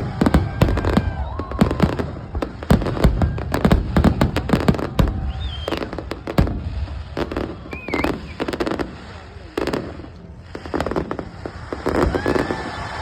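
Fireworks display: rapid, irregular bangs and crackles, with a few short whistling squeals. The bangs thin out briefly about three-quarters of the way through, then pick up again.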